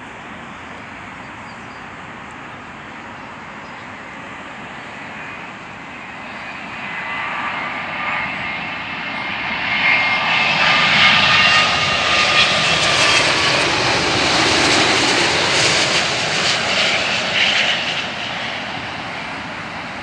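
Boeing 787-9 airliner's Rolls-Royce Trent 1000 jet engines on landing approach: a steady jet rush with a high whine that grows from about a third of the way in, is loudest in the second half, and fades near the end as the aircraft passes.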